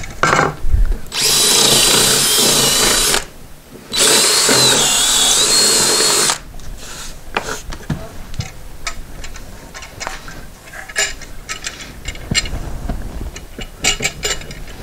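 Cordless drill boring into a wooden stair tread in two runs of about two seconds each, a steady high whine whose pitch dips as the bit bites. Quieter scattered knocks and handling sounds follow.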